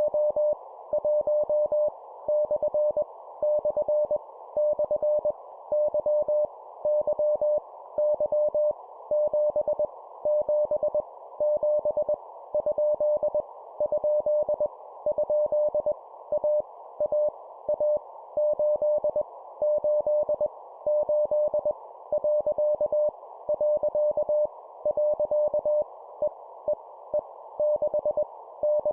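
Morse code (CW) practice tone: a single mid-pitched beep keyed on and off in dots and dashes at 20 words per minute, sending random letters, numbers and punctuation, each character sent three times. It sits over a steady band of hiss.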